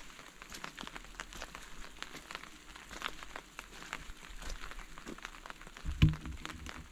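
Rain falling, its drops landing as many small, irregular ticks over a light hiss, with one louder low thump about six seconds in.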